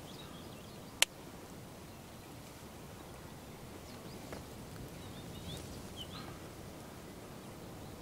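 Faint open-field ambience with a few small, distant bird chirps and a single sharp click about a second in.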